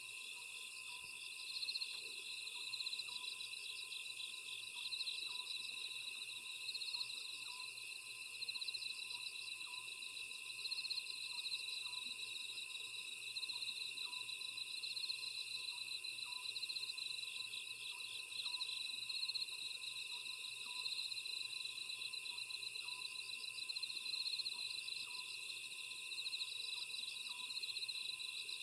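Night chorus of crickets and other grass insects singing, a steady pulsing trill, with an Oriental scops owl faintly repeating its short two-note 'sotjeok' hoot every couple of seconds.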